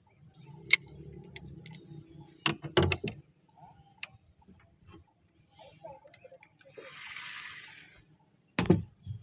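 A few sharp clicks and knocks, one cluster about two and a half seconds in and another near the end, with a brief soft hiss in between.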